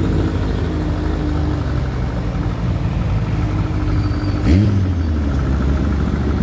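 Car engines running as a slow line of older cars drives past close by. About four and a half seconds in, one engine revs up sharply as a car pulls past.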